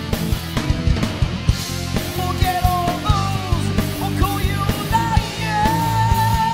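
Heavy metal band recording with driving drums under a lead melody that bends and slides, settling on a long held, wavering note about five seconds in.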